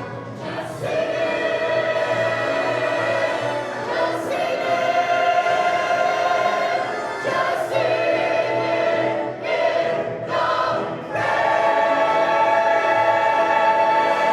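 A chorus of voices singing a musical-theatre number with music, the singing breaking off abruptly and resuming several times.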